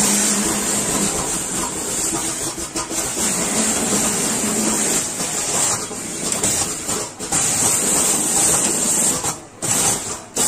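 Fiber filling machine running, its blower making a steady airy hiss as it moves loose fiber. The hiss drops away briefly about nine seconds in.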